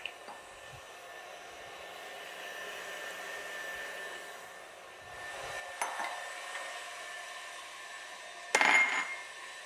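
Stand mixer running steadily, beating butter and sugar while eggs are added one at a time. A few small clicks about six seconds in, and a short, loud clatter with a brief ring near the end.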